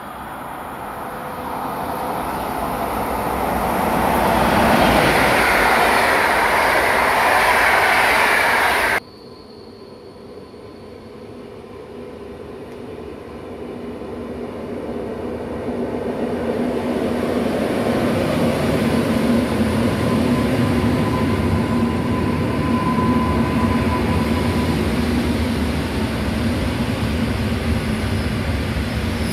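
Passenger trains passing through a station: one approaching and growing louder until it cuts off abruptly about nine seconds in, then another approaching and running past with a steady rumble of wheels on rails.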